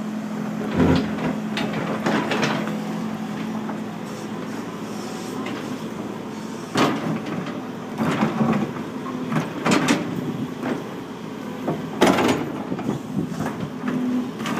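Sumitomo hydraulic excavator's diesel engine running steadily while its steel bucket scrapes and knocks through rocky soil. Sharp scrapes and clanks come every second or two, loudest about a second in and near the end.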